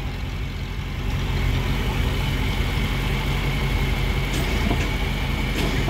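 Antique John Deere tractor engine running steadily with a low, even drone, a little louder from about a second in.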